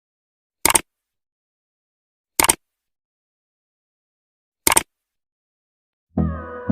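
Three short, sharp bursts of noise, about two seconds apart, in otherwise dead silence. Music with a steady beat starts near the end.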